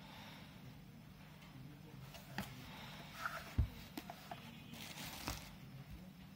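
Faint handling sounds of a small metal satellite receiver being turned over and set down on a cloth-covered surface: a few light clicks and knocks, with one soft thump about three and a half seconds in, and a brief rustle of plastic bags near the end.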